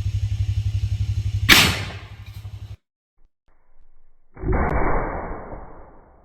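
A 12-gauge single-shot shotgun fires once, a sharp crack about a second and a half in, over an engine idling with a steady low pulse. After an abrupt cut, a duller, muffled blast comes about four and a half seconds in and fades away.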